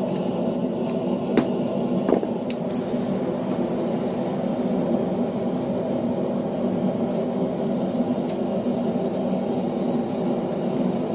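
Steady roar of a running forge, with a few light metallic clinks in the first three seconds.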